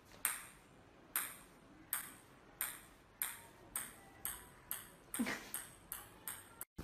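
Small orange ball bouncing on a hard tile floor: about a dozen light, ringing clicks that come faster and faster and grow fainter as the bounces die away.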